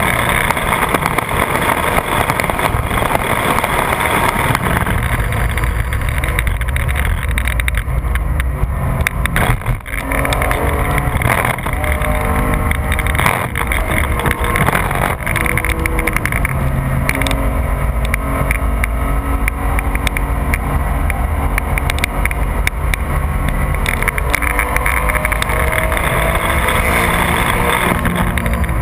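Porsche 996 GT3's naturally aspirated flat-six engine running hard on track, its pitch rising and falling, with a brief drop in loudness about ten seconds in. Heavy wind and road noise are mixed in.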